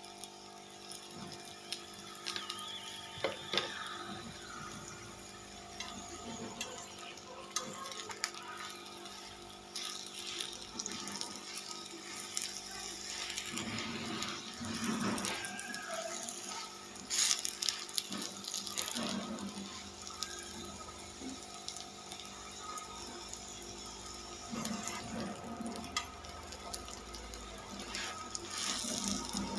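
Stuffed paratha frying in oil on a flat iron tawa: a steady, soft sizzle with fine crackles, and a few louder moments when it is pressed down by hand.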